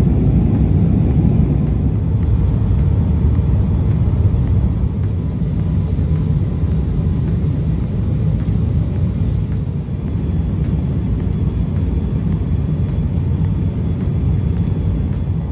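Steady low rumble inside the cabin of an Airbus A350-1000 airliner descending towards landing. It is airflow and engine noise from its Rolls-Royce Trent XWB engines, with a faint steady hum on top.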